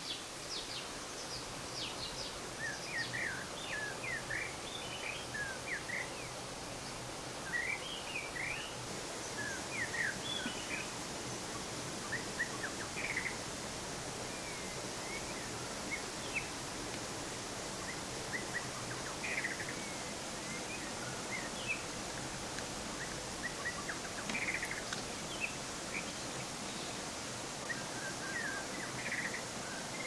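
Small birds chirping in frequent short, high calls over a steady rush of flowing water.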